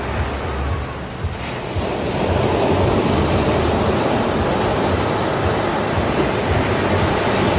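Sea surf: small waves breaking and washing up a sandy beach in a steady rushing wash that swells louder about two seconds in.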